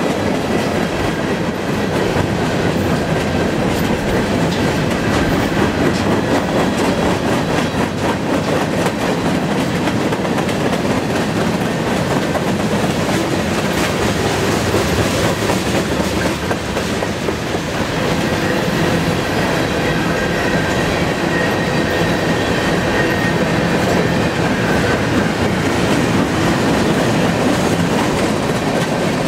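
Freight cars of a passing CN freight train (centerbeam flatcars, tank cars and boxcars) rolling by: a loud, steady rumble of steel wheels on rail with rapid clicks running through it.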